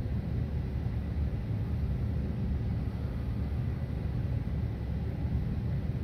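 Westinghouse Mini Sidewinder ceiling fan's shaded-pole motor spinning up slowly, giving a steady low rumble and hum. Its bearings have a real rough spot, so it only just got started on the low control setting.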